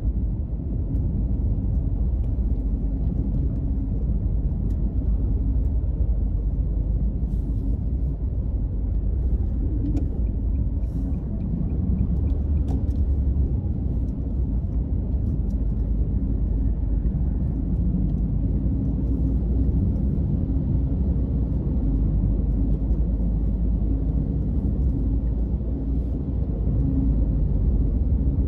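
Steady low rumble of a car being driven: engine and tyre noise, with a few faint clicks or rattles.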